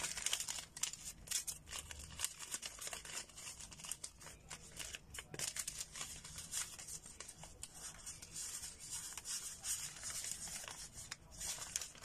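Paper banknotes being flipped through and sorted by hand: a run of irregular crisp paper rustles and flicks.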